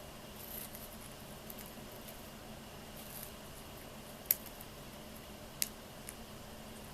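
Fischer's lovebird husking foxtail millet seeds with its beak: faint rustling, then three sharp, crisp clicks of seeds cracking in the second half.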